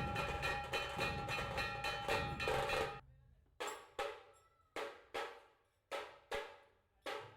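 Background music with a steady beat. About three seconds in it breaks down to separate drum hits, roughly two a second, each ringing out.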